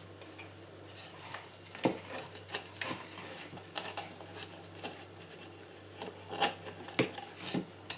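Plastic humidifier housing being handled and pulled apart by hand: scattered clicks, knocks and rubbing of plastic parts, the sharpest about two seconds in and again twice near the end, over a steady low hum.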